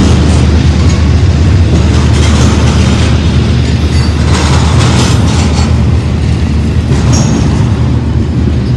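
Double-stack container train of loaded well cars rolling past close by: a loud, steady rumble of steel wheels on rail with clatter from the cars. A brief high squeal comes about seven seconds in.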